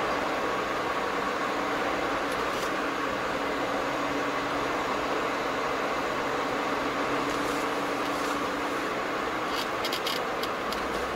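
Car cabin noise while driving at steady speed: engine hum and tyre and road noise, heard from inside the vehicle. A few short clicks come close together near the end.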